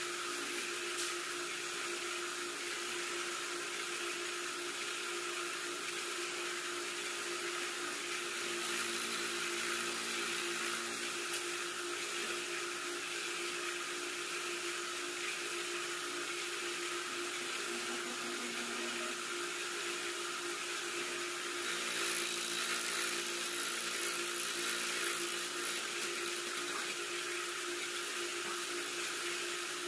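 Cylinder boring machine running steadily as its boring bar cuts the bore of a motorcycle cylinder, a constant hum with an even hiss of cutting. It grows slightly louder for a few seconds about a third of the way in and again about two-thirds in.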